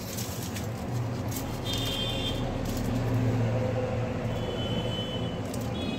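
Steady low hum of a motor vehicle or traffic running outside, swelling a little about a second in and again around three seconds. Faint crinkling of aluminium foil being handled, and two short high-pitched tones, one about two seconds in and one near the end.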